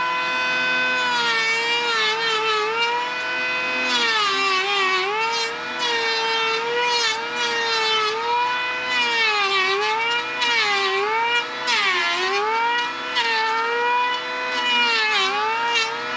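Cordless electric hand planer running with a steady high whine, its motor pitch sagging each time the blades bite into the wooden beam and picking back up between bites, about ten times over. The whine stops just after the end.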